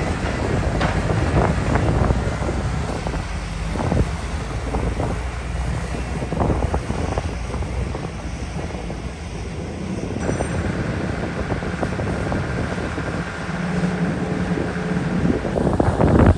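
Heavy diesel construction machinery running steadily, with wind buffeting the microphone and scattered knocks, and a loud thump near the end.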